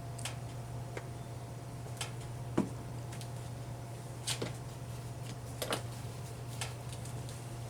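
Scattered light clicks and small knocks at irregular intervals as a Sony PS-LX220 turntable and its parts are handled, over a steady low hum.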